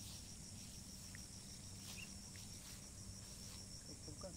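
A steady, high-pitched trill of insects, crickets by the sound of it, pulsing rapidly and evenly under a faint low hum.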